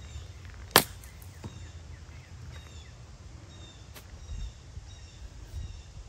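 A lob wedge strikes a golf ball with one sharp click less than a second in, followed by a faint tick. Birds chirp softly throughout over a low steady rumble.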